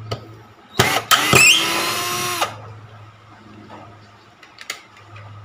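Black and Decker GC1800 18-volt cordless drill/driver on its highest torque setting driving a 1½-inch black gypsum screw into wood. There is a brief blip, then about a second and a half of motor whine that cuts off abruptly, with the screw sunk deep into the wood.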